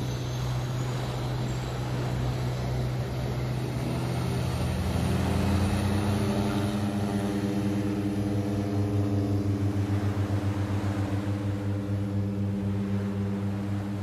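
Floatplane on its take-off run across the water. Its propeller drone builds from about four seconds in into a loud, slightly rising hum with a pulsing beat, over the low steady hum of a boat's engine.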